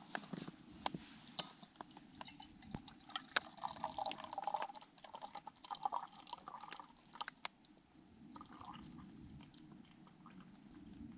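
Faint scattered clicks and drips, with a short liquid trickle between about four and seven seconds in.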